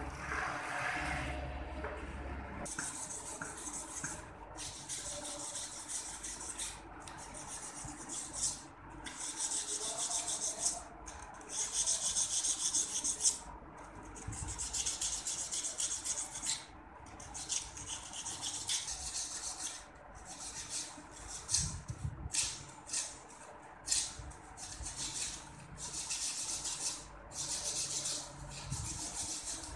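Repeated rubbing and scraping as the metal big-end cap of a large connecting rod is handled and shifted over a wooden floor, in stretches of a second or two with short pauses between them.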